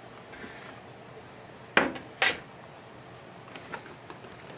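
Two sharp clinks about half a second apart, then a few faint ticks: hard parts inside the opened-up turntable's mechanism being handled and knocked.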